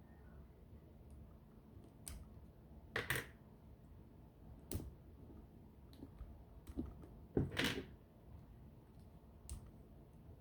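Plastic Bionicle pieces being pulled apart and set down: scattered sharp clicks and clacks. The loudest come in a short cluster about three seconds in and another about seven and a half seconds in.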